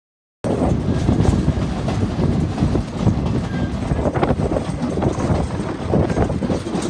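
A train running along the track, its wheels clattering over the rails in a loud, steady rumble with scattered clicks. The sound cuts in suddenly about half a second in.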